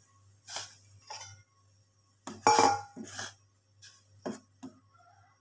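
Stainless steel bowl and pot clinking and knocking, about half a dozen times, as sardines are put by hand into a simmering pot of gravy. The loudest is a clink with a short ring about two and a half seconds in.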